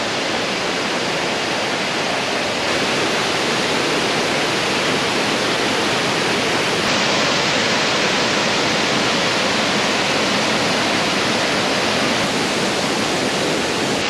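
Rushing water of a rocky mountain stream cascading over boulders in small waterfalls, a steady loud wash of noise that grows slightly louder about three seconds in.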